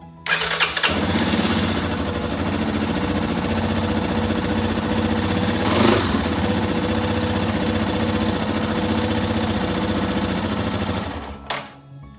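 Yamaha XT250 motorcycle's single-cylinder four-stroke engine starting up quickly and running steadily, with a brief louder moment about halfway through, then shutting off about eleven seconds in. The start shows the new battery turns the engine over.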